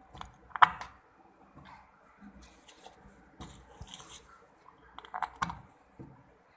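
Sharp clicks and brief scraping as the small mesh inlet filter is worked out of a front-loading washing machine's water inlet, the loudest click about half a second in.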